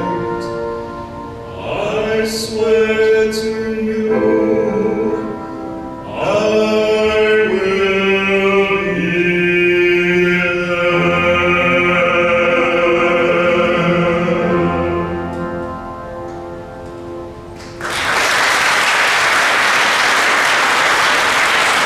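Two male voices sing a dramatic musical-theatre duet with piano accompaniment, building to long held final notes. About four seconds before the end, audience applause breaks out suddenly and continues.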